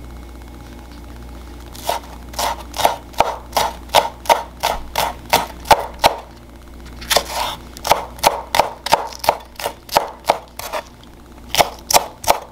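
Chef's knife chopping green onion stalks on a wooden cutting board: quick, sharp strikes at about three a second. They begin about two seconds in and come in runs with short pauses.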